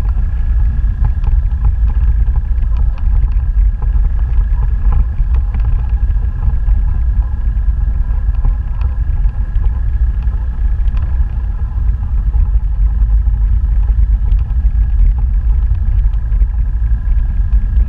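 Motorbike running steadily along a rough dirt road, its engine noise mixed with heavy wind rumble on the microphone. A thin steady whine sits above the rumble, with small scattered ticks and rattles.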